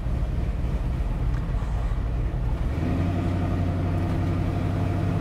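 Engine of a lifted square-body Chevrolet pickup running as the truck drives up toward the camera; the engine note grows stronger and steadier about three seconds in.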